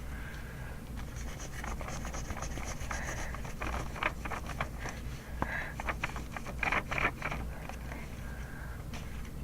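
Handwriting on paper: a quick run of short scratching strokes and light taps as kanji characters are written out, over a steady low hum.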